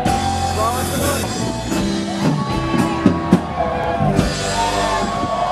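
Live rock music: a band playing, with drums and pitched lines over them.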